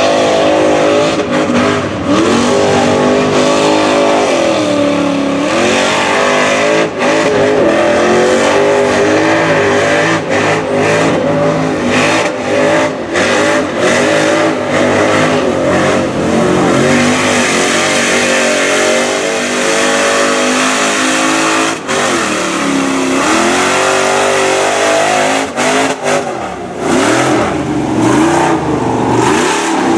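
Lifted Chevy Silverado mud truck's engine revving hard as it churns through a mud pit on big tractor-tread tires, its pitch repeatedly dropping and climbing again as the throttle is lifted and reapplied. Frequent short, sharp cracks run through it.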